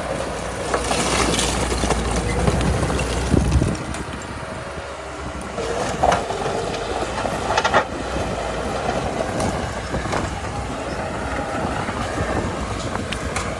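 Komatsu D37P crawler bulldozer working: diesel engine running with its steel tracks clanking. A deep rumble drops away about four seconds in, and a couple of brief higher-pitched squeals come around the middle.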